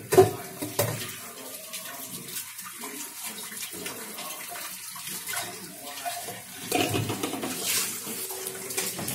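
Kitchen tap running into the sink while dishes are washed by hand, with scattered short knocks and clinks.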